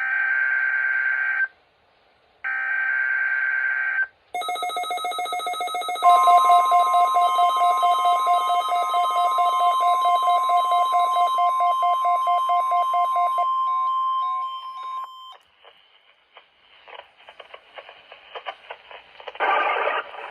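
NOAA Weather Radio alert signals. First, two short bursts of screechy digital SAME header data, a second apart. Then a weather radio's rapid alert beeping, joined by the steady 1050 Hz warning alarm tone, which holds for about nine seconds and cuts off. Radio static follows, and the broadcast voice comes in near the end.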